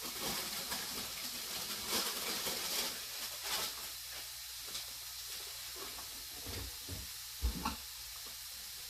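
Chicken breast sizzling in an oil-sprayed frying pan: a steady hiss. Handling and rustling noises come over the first few seconds, and a couple of low thumps come near the end.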